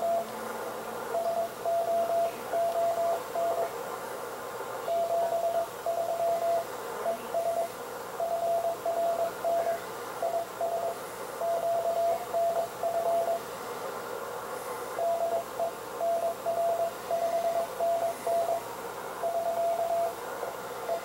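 Morse code (CW) received on a Yaesu FTDX-1200 transceiver on the 40-metre band: one steady mid-pitched beep keyed on and off in dots and dashes over band hiss, with short pauses between groups. The sending station is signing off ("see you soon, 73").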